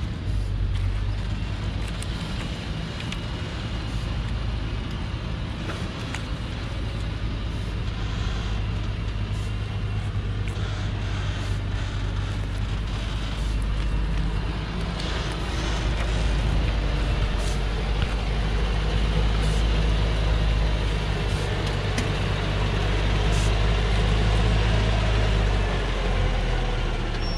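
Old Thaco Forland truck's diesel engine running steadily as the truck crawls down a steep dirt track fully loaded with acacia logs. It grows louder in the second half as the truck comes close.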